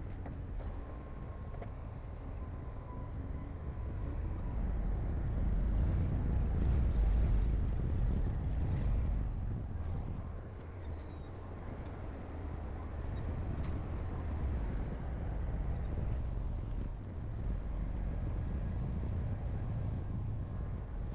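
Heavy diesel earthmoving machinery running with a deep, steady rumble. The rumble grows louder for a few seconds about a third of the way in, then eases off.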